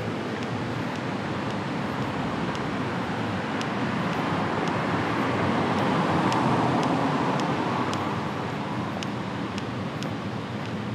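City street traffic: a passing vehicle swells to its loudest a little past the middle and then fades. Light regular ticks about twice a second run under it, the walker's footsteps.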